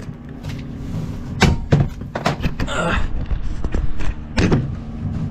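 Handling knocks and thumps as the camera is picked up and moved: a few sharp bumps, with a rustling stretch about halfway through, over a steady low hum.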